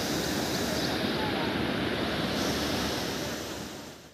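River water rushing over a low dam spillway, a steady wash, with wind on the microphone. It fades out near the end.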